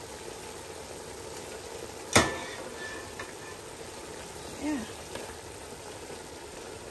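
Chopped chicken breast, mushrooms and broccoli sizzling steadily in a pan. A single sharp knock sounds about two seconds in.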